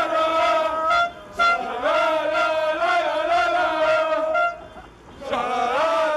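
A group of men chanting and singing together loudly in celebration, breaking off briefly about a second in and again around five seconds before starting up again.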